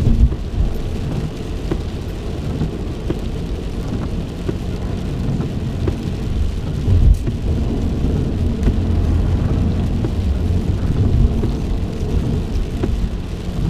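Heavy rain on a moving car, heard from inside the cabin: an even hiss with scattered sharp ticks of drops striking, over a steady low rumble of the car driving on a wet road.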